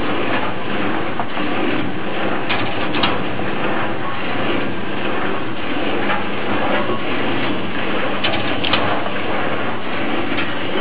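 Automatic cashew shelling machine running and shelling cashew nuts: a steady, dense mechanical clatter with scattered sharp clicks over a low hum.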